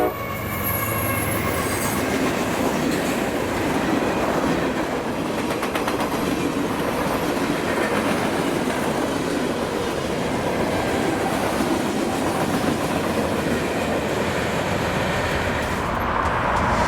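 CSX freight train rolling past, a steady rumble of wheels on rail with faint clickety-clack. A horn blast cuts off right at the start.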